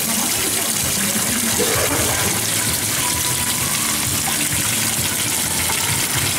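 Water from a protein skimmer's outlet pipe pouring in a steady stream onto an egg-crate grid in a saltwater aquarium sump and splashing into the water below.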